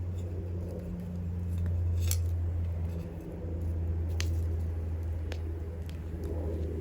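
Wood bonfire crackling: scattered sharp pops and snaps, the loudest about two seconds in, over a steady low hum.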